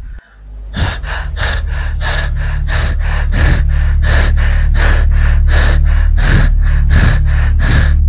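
A man panting in rapid, heavy gasps for breath, about three a second, starting just under a second in, over a low steady drone of background music.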